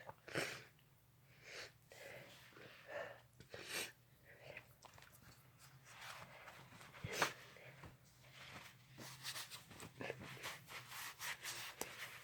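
Faint sniffing, breathing and rubbing noises from a person with a sneezy, irritated nose. The noises come in short irregular bursts, with one sharper, louder burst about seven seconds in and a run of quick short sniffs near the end.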